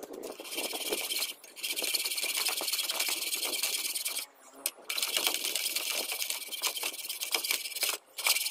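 A small handheld tool working on a rusty steel meat cleaver clamped in a bench vise, making a continuous high, hissing buzz. The buzz breaks off briefly about a second in, again after about four seconds, and once more near the end.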